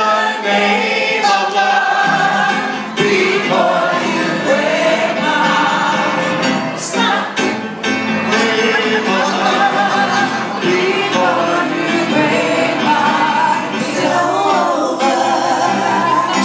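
Live music: several voices singing together over musical accompaniment.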